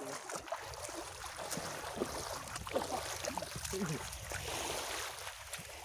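A steady wash of shallow seawater at the shoreline, with a few brief faint voices.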